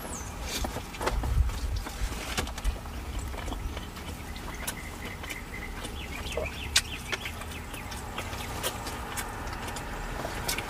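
Close-miked chewing and mouth smacking from people eating a birria smash burger and a shrimp torta, with many short wet clicks over a low rumble.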